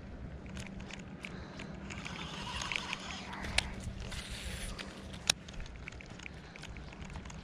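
A baitcasting reel casting and retrieving a frog lure: a brief hiss as line pays out off the spool, a sharp click about five seconds in as the reel engages, and light ticking from the reel and rod being handled.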